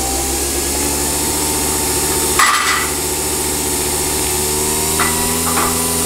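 Nespresso capsule coffee machine brewing, its motor running with a steady mechanical hum and a whine that slowly rises in pitch. A short hiss about two and a half seconds in.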